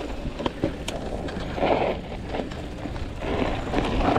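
Hardtail mountain bike riding over a dirt trail: tyre and wind rumble with scattered knocks and rattles from the bike over bumps, and two brief louder rushes of noise.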